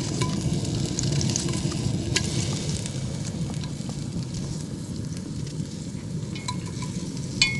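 Onion pieces sizzling in hot sesame oil in a stainless steel stockpot, a steady frying hiss with small pops, and a short sharp tap near the end.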